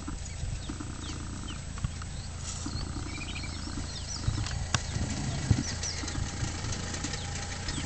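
Lions feeding at a kill, chewing and crunching on meat and bone in irregular knocks, with a couple of sharp cracks a little past halfway.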